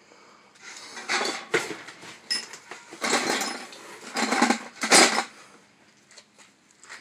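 Hands rummaging through loose metal objects, which clatter and clink in several short bursts before going quiet near the end.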